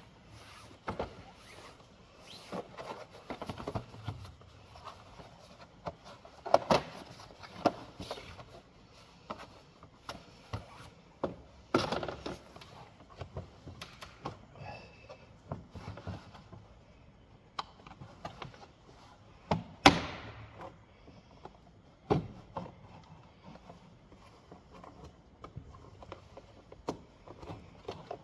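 Irregular knocks, clicks and clunks, like tools and parts being handled at a car being worked on. A few louder bangs stand out, the sharpest about twenty seconds in.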